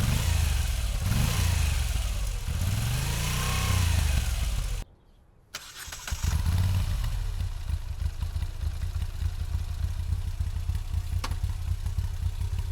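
Moto Guzzi V7 850's air-cooled V-twin revved twice, its pitch rising and falling with each blip. After a brief cut in the sound about five seconds in, it idles steadily.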